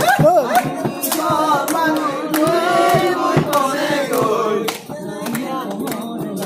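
A group of men singing together, with hand claps.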